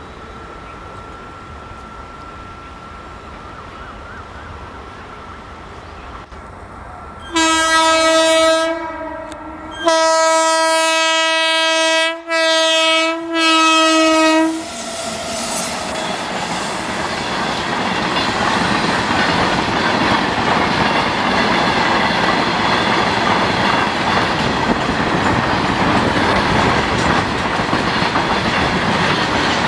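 Electric freight locomotive's horn: a short blast about seven seconds in, then a long blast broken by two brief dips. After it, the steady rolling rumble and clatter of a freight train's wagons passing close by, growing louder.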